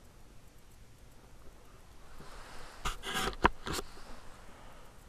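Handling noise on a camcorder's built-in microphone as the camera is picked up and moved: a soft rustle builds, then a quick run of knocks and clicks about three seconds in, the loudest about half a second later.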